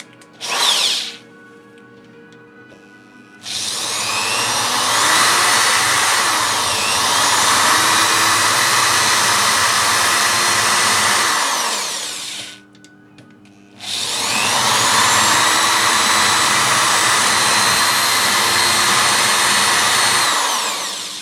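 Electric drill spinning up and cutting for about eight seconds, stopping, then running again for about seven seconds. A larger bit is being used to open a countersink for a countersunk screw head.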